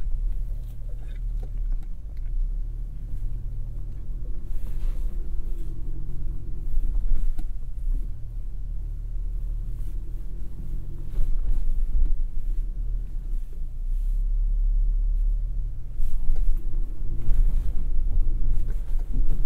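Inside the cab of a GMC Canyon AT4X AEV crawling over rough dirt: its 2.7-liter turbocharged inline-four runs at low revs under a steady low rumble, with occasional knocks as the truck works over the ground. It gets louder near the end.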